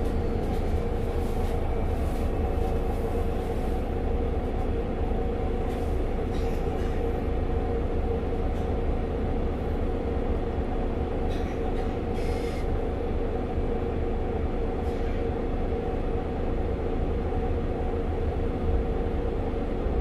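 Mercedes-Benz Citaro C2 G articulated city bus's diesel engine idling at a standstill: a steady low drone with an even hum above it, and a few faint clicks about halfway through.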